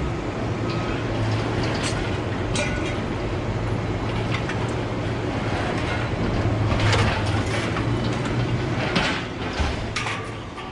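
Truck driving on the road: steady engine and road noise with scattered rattles and clicks, fading out near the end.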